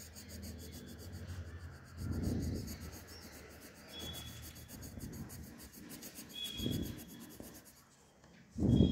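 Pencil lead scratching on paper in rapid back-and-forth shading strokes, with a few low thumps, the loudest near the end.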